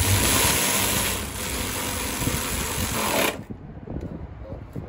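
A power tool runs with a loud whirring hiss for about three and a half seconds, then cuts off suddenly.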